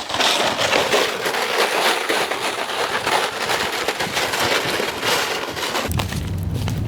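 Campfire burning with dense crackling and snapping. Near the end the crackle thins to a few separate pops over a low wind rumble on the microphone.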